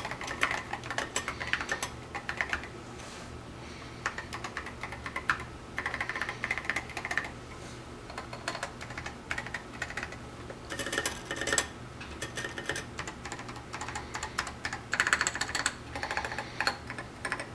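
Typing on a custom steel-cased mechanical keyboard with 78g Zealios tactile switches and SA-profile PBT keycaps: keystrokes clack in quick runs with brief pauses between them.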